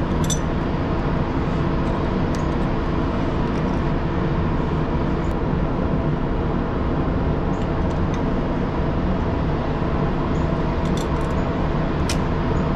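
Steady low drone of an idling engine, with a few light metallic clicks from a wrench turning a truck slack adjuster's adjusting nut.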